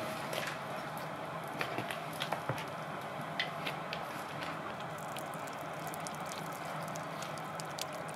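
Water dripping and trickling in many small, scattered drips and splashes over a steady background hiss.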